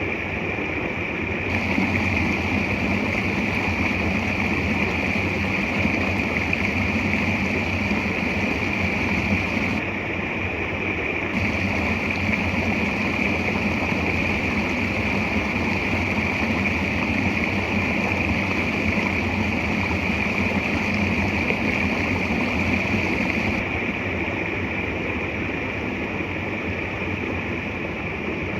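Steady rush of water from a small waterfall and creek. A higher hiss drops away briefly about ten seconds in and again for the last few seconds.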